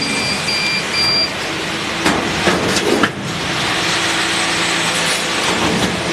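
CO2 laser cutting machine working on stainless steel sheet, with a steady hiss throughout. Three short high beeps sound in the first second, and a few sharp clicks come around the middle.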